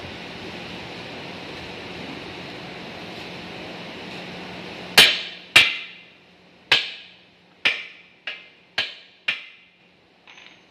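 A lathe running with a steady noise that stops about five seconds in, followed by seven sharp hammer blows on metal, each ringing briefly and dying away.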